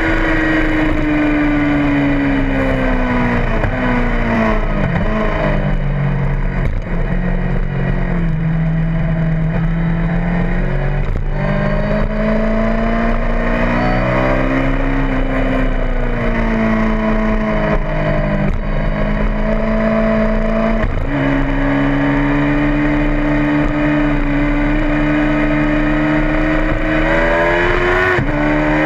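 Motorcycle engine heard from an onboard camera at track speed, its pitch gliding down and up with the throttle and stepping sharply at gear changes, over steady rushing noise.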